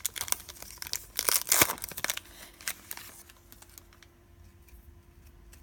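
A trading card pack's wrapper being torn open and crinkling, loudest in the first two seconds, then only faint rustles and clicks as the cards are handled.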